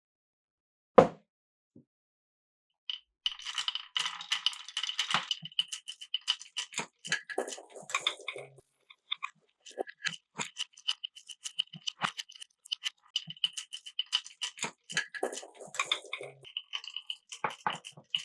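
Marbles running down a wooden marble run: a single sharp click about a second in, then from about three seconds a continuous clatter of rapid clicks and rattles as marbles roll and knock along the track, with a high steady ringing through much of it.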